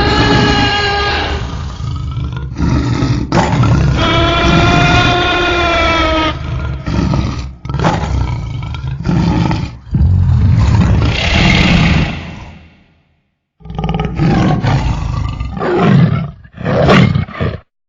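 Allosaurus sound effects: a string of designed dinosaur roars and growls, one long call arching in pitch a few seconds in, then a brief gap and several shorter calls near the end.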